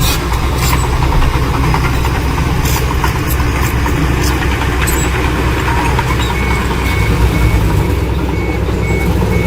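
Heavy diesel earthmoving machinery running with a steady, deep engine rumble, with a few sharp knocks in the first few seconds. About two-thirds of the way in, a vehicle's reversing alarm starts beeping, roughly one high beep a second.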